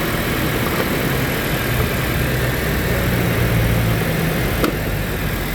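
Toyota Innova gasoline engine idling steadily, with a single sharp click a little over four and a half seconds in. The engine is running again after a crank-but-no-start caused by no power supply to the fuel injectors.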